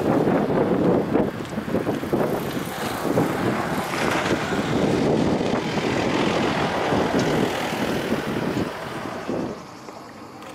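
Boeing 737-800's CFM56 jet engines at takeoff power, heard from behind as the jet rolls and climbs away: a loud, rough, crackling rumble. The noise drops away sharply near the end.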